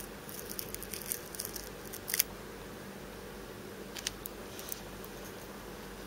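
Faint, crisp crackles and ticks as fingers handle a pair of dry male higurashi cicada wings. A cluster runs through the first two seconds and ends in the loudest tick, with a few more about four seconds in. A steady low hum runs underneath.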